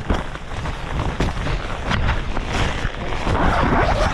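Strong wind gusts buffeting the microphone and a tent in a thunderstorm, the loose tent fabric flapping and snapping in irregular sharp cracks over heavy low wind noise.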